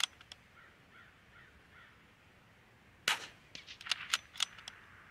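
.22LR bolt-action rifle: a sharp shot right at the start, and another report about three seconds in, followed by a quick run of metallic clicks as the bolt is worked. Faint bird calls come in between the shots.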